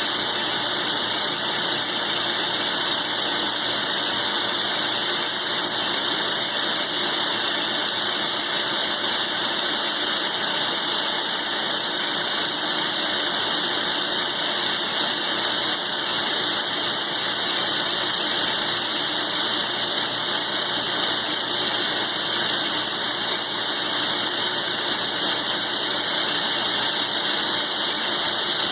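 Milling machine cutting thick steel with a roughing end mill: a steady, even machining noise with a strong high hiss and a faint squeal.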